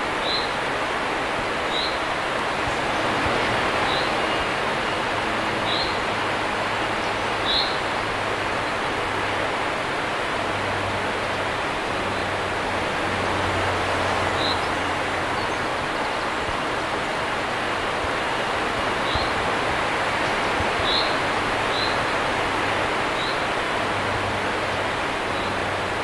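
River water pouring over a low concrete weir and rushing across a stony bed: a steady rush of water. A small bird gives short high chirps every few seconds over it.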